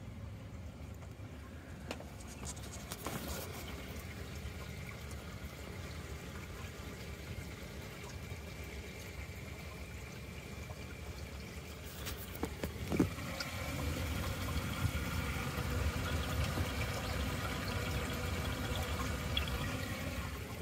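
Water leaking from a burst household water pipe, a steady hissing rush with a low rumble that grows louder about two-thirds of the way through. A few sharp knocks sound partway through.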